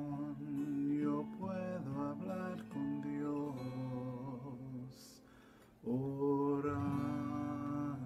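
Acoustic guitar being strummed, with chord changes in the first few seconds, a lull where it dies down, then a new chord struck about six seconds in and left ringing.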